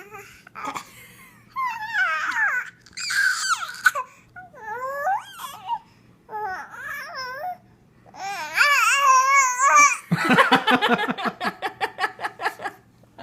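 A baby making high, sliding squeals and babbling sounds in short bursts. About ten seconds in, these give way to a rapid run of short pulsed giggles.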